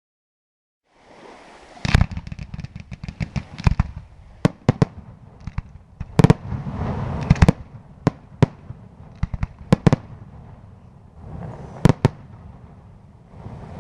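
Aerial fireworks display: shells bursting in sharp bangs at uneven intervals, with rapid runs of small cracks between them, starting about a second in after a silent start.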